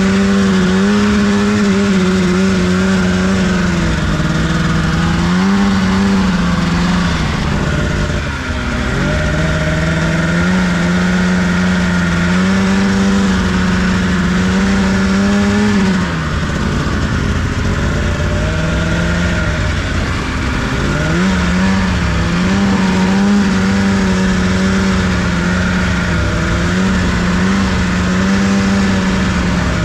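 Off-road vehicle engine running hard at high, steady revs through deep snow, easing off and picking back up several times.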